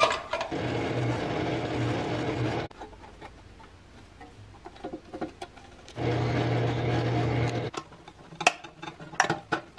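A small power tool's motor running in two short runs, the first about two and a half seconds and the second under two seconds, each cut off suddenly. Near the end come a few light taps.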